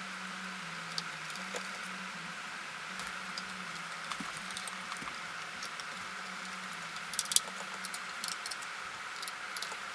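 Scattered light clicks and taps of small parts and hardware being handled while an electronic speed controller is fitted onto an RC car chassis, with a brief cluster of sharper clicks about seven seconds in. A steady low hum runs underneath.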